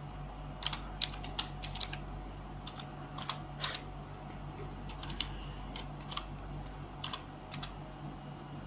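Irregular key clicks as an email address is typed in, a few presses a second with short pauses between, over a steady low hum.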